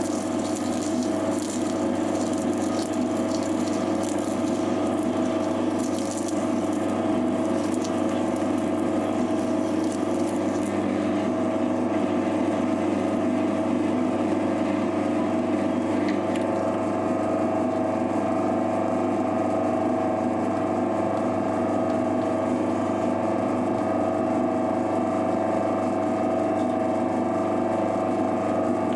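Mini metal lathe running steadily, its motor and drive giving a constant hum with several steady tones. A high scratchy hiss rides on top for about the first ten seconds, then drops away.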